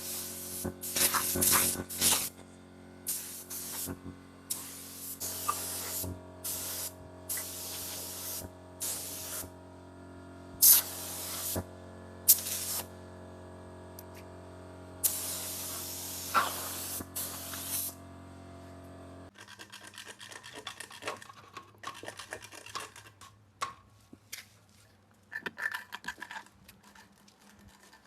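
Repeated short bursts of compressed-air spraying from a spray gun or air nozzle, each lasting a second or less, over a steady machine hum. The hum stops about 19 s in, leaving faint clicks and scrapes.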